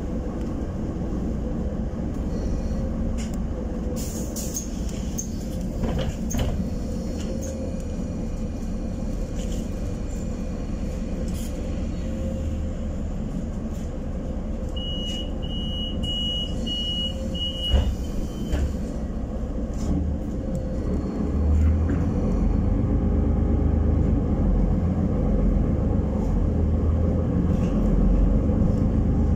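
Interior of a Solaris Urbino 12 city bus: steady engine and road rumble. About halfway through, a run of five short high beeps is followed by a sharp knock. The rumble then grows louder as the bus gets going.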